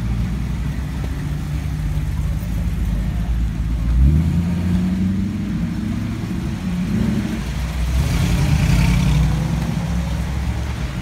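Classic vehicle engines, a hot rod's and a 1950s Ford pickup's, running with a low rumble as they drive slowly past. There is a rev about four seconds in, and a hiss of tyres on the wet road around eight seconds in.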